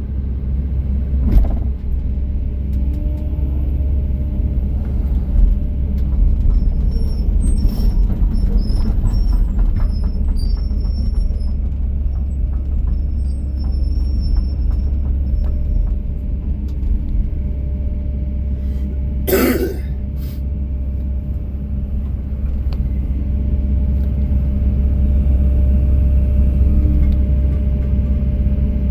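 Kobelco SK215SRLC excavator's diesel engine running steadily, with a brief burst of noise about two-thirds of the way through.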